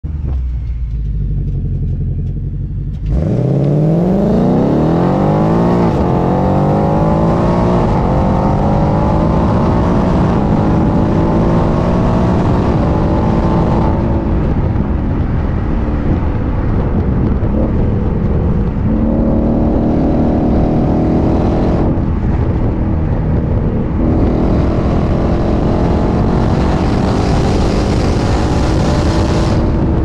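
2020 Ford Mustang GT's 5.0-litre V8 through its stock exhaust in sport mode, heard from beneath the car while driving. A low rumble gives way, about three seconds in, to hard acceleration with the revs rising steeply. A brief break comes around six seconds, then a slower climb. Later the revs ease and vary, and near the end they climb again.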